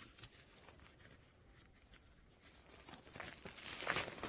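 Faint rustling and scattered clicks of things being handled, growing louder in the last second or so.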